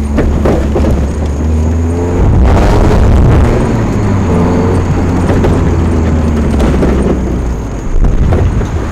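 Mazda Miata's four-cylinder engine and exhaust heard from the open cockpit while driving, with a new muffler fitted and an exhaust leak at the resonator that is patched but still leaking. A steady low drone gets louder and rougher about two seconds in as the car pulls, settles again, and jumps in loudness suddenly near the end.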